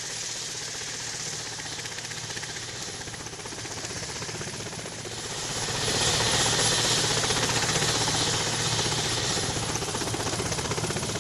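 Helicopter running, a steady rotor and engine noise that grows louder about five to six seconds in.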